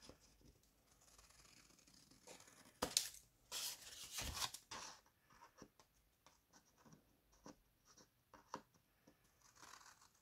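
Scissors cutting through a sheet of paper in short crisp snips, with a louder run of cutting about three to five seconds in and faint small snips after it.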